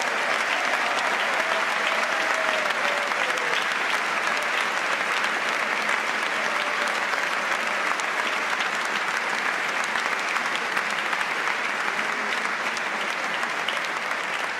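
A large crowd applauding steadily, a sustained ovation of many hands clapping at once.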